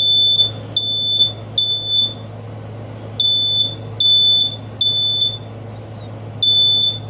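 Smoke alarm sounding under test: loud, high-pitched beeps of about half a second each, in groups of three with a short pause between groups (the temporal-three fire pattern). Two full groups are heard, and a third starts near the end.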